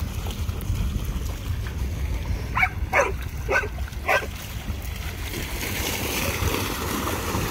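A dog barking four times in quick succession, roughly half a second apart, over a steady low rumble of wind on the microphone and water splashing as dogs run through the shallows.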